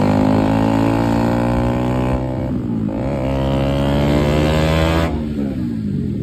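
Motorcycle engine running at road speed with wind rush. The engine note dips about two seconds in and climbs again as the throttle opens, then falls away as the throttle closes, about five seconds in.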